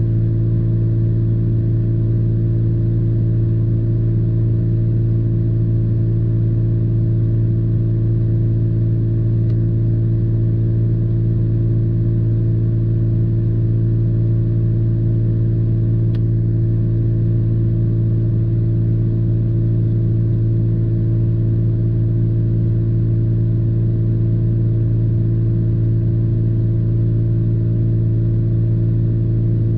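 Truck engine idling, a steady low drone heard from inside the cab, with a couple of faint clicks.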